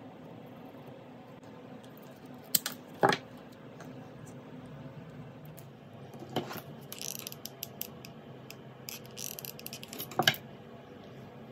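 A wooden craft stick being cut: a few sharp cracks about two and a half to three seconds in and again near the end, with short runs of fine crackling in between.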